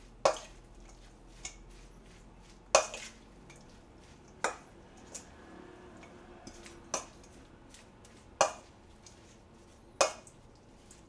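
Stainless steel mixing bowl clinking as seasoned chives are tossed in it: six sharp clinks and a few fainter ones, a second or two apart.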